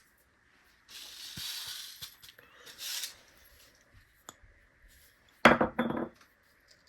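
Two spells of rustling, then a short, loud clinking rattle about five and a half seconds in: small hard onion seeds shaken and clicking inside a plastic seed dispenser during sowing.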